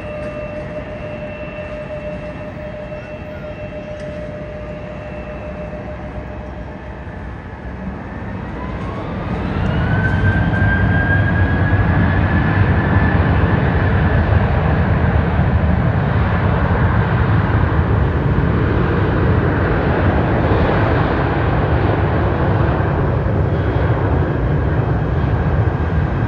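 Jet airliner's engines whining steadily, then spooling up about eight seconds in, the whine rising in pitch as the sound swells into a loud, steady jet roar.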